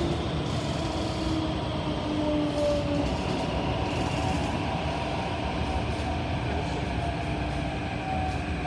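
SMRT CT251 metro train running, heard inside the carriage: a steady rumble of wheels on rail, with a motor whine that slides slowly in pitch, falling at first.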